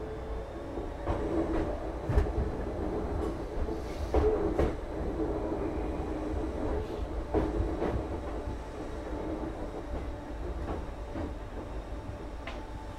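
Running noise inside the motor coach of a Class 313 electric multiple unit, with a steady low rumble and bands of traction-motor hum. Irregular sharp clicks and knocks from the wheels come through it, the loudest about two and four seconds in.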